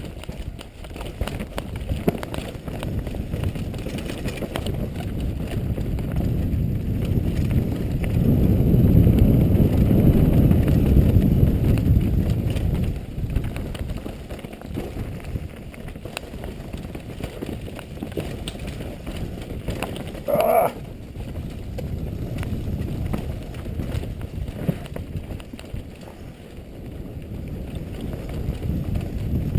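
Downhill mountain bike riding fast over a rocky dirt trail, heard from a helmet-mounted camera: low rumble of tyres and wind on the microphone with constant rattling and knocking of the bike over rocks, loudest in the first half. A brief squeal about two-thirds of the way through.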